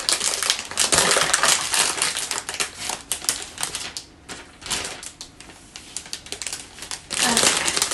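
Clear plastic florist's sleeve crinkling and crackling as it is worked off a potted orchid. It is loudest over the first few seconds, eases off in the middle, and flares again briefly near the end.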